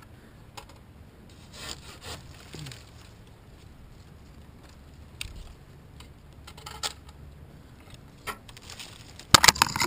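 Pruning handsaw cutting through a poplar limb: faint, scattered strokes at first, then a fast run of loud strokes near the end.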